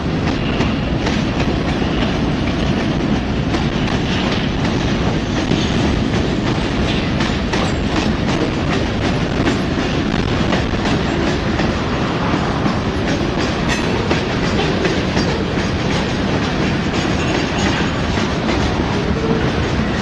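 Norfolk Southern freight train's cars rolling past below: a steady rumble of steel wheels on rail, with rapid clicking as the wheels cross rail joints.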